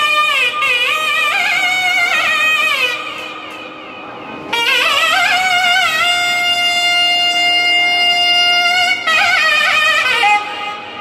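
Nadaswaram, the long South Indian double-reed wind instrument, playing a melody in raga Keeravani. It plays ornamented phrases with sliding pitch bends, softer about four seconds in, then holds one long steady note for about three seconds before going back to quick gliding turns.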